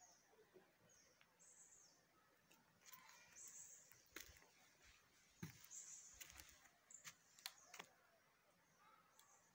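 Near silence outdoors, with faint short high-pitched bird chirps every second or so and a few faint clicks.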